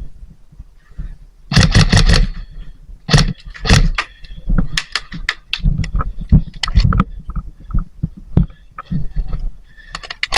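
Irregular sharp clicks and knocks with dull thuds, in a dense cluster about a second and a half in, then more scattered through the middle.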